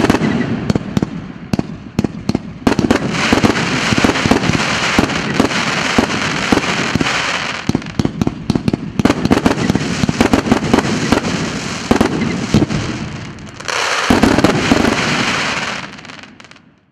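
A 100-shot, 1.5-inch fireworks cake firing: a rapid, uneven run of sharp launch and burst reports over a dense crackle from the bursting stars. It thins briefly about two seconds in and again near fourteen seconds, then fades out near the end.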